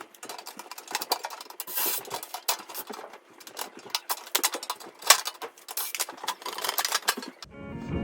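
Irregular metallic clinks, knocks and scraping from go-kart chassis parts and tools being handled. Guitar music comes in near the end.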